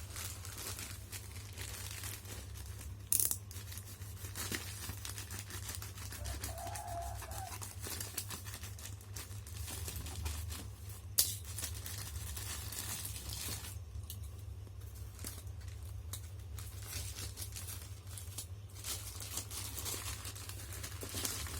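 Parcel packaging being torn and crinkled open by hand, with a couple of sharp snaps about three and eleven seconds in.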